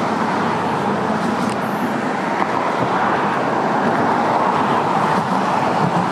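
Steady road traffic noise, the continuous hum of passing cars, with no single event standing out.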